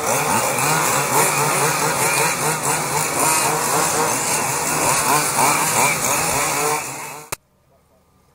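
Several quarter-scale RC cars' Zenoah 270RC two-stroke petrol engines buzzing as they race past, their pitches rising and falling as they rev. The sound cuts off abruptly with a click about seven seconds in.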